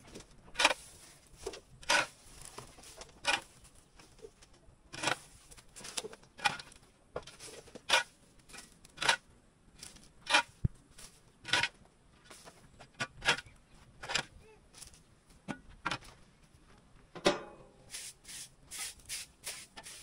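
Scraping and sweeping strokes on the yard floor, about one a second and quicker and closer together near the end, as straw and dried dung are gathered up with a shovel and a short hand broom.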